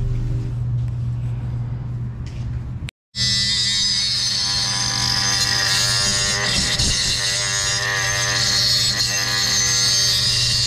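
Power grinder cutting down a metal adjustment tab on a coilover: a steady high-pitched grinding whine with hiss. It starts about three seconds in after a sudden short silence, and a low music bed runs underneath.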